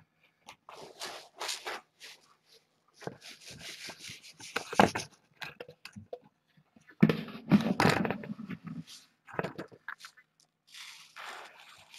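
Irregular scraping, rustling and knocks of handling close to the microphone, loudest about five seconds in and in a cluster from about seven to nine seconds in.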